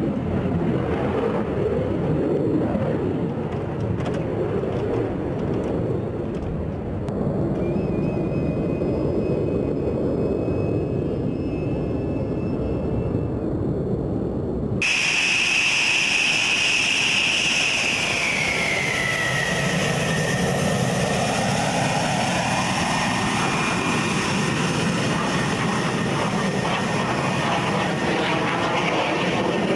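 F-16 jet engine running on the ground. At first there is a dense, steady rumble. About halfway through the sound changes abruptly to a loud high whine that falls in pitch over a few seconds and then holds steady.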